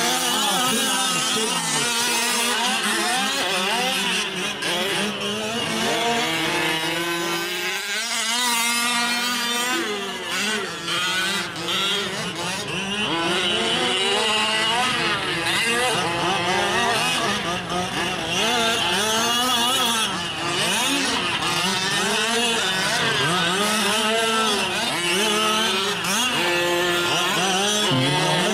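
Several 1/5-scale gas RC trucks racing, their small two-stroke engines revving up and down and overlapping.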